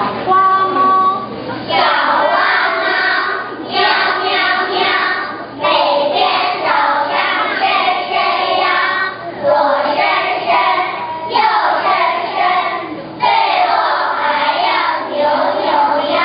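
A chorus of young children singing together in unison, in phrases of about two seconds each.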